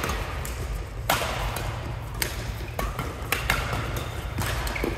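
Badminton rally: rackets striking the shuttlecock about six times, each hit sharp and echoing in a large hall, with short squeaks of shoes on the court floor between hits.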